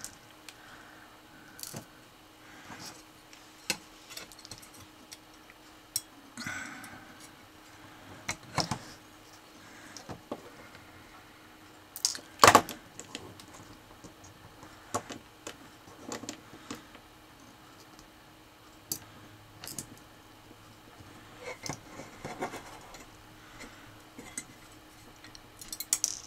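Small hand-assembly noises as a screwdriver and tiny screws work a thin aluminium robot chassis plate and its small DC motors: irregular light clicks, taps and small metal clinks. One sharper knock comes about halfway through.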